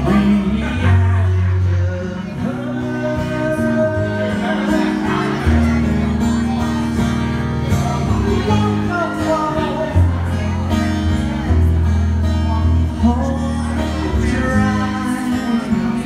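A man singing live to his own strummed twelve-string acoustic guitar, heard through a PA.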